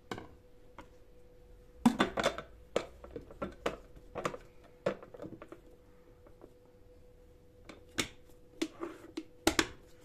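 Plastic snap-lock lid being fitted onto a glass food storage box: a run of clicks and knocks about two seconds in, then a few more sharp clicks near the end as the lid is pressed down.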